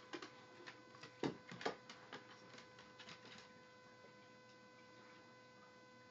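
A dog's claws click and tap on a hardwood floor a few times in the first three seconds, then near silence. A faint steady electrical hum runs underneath throughout.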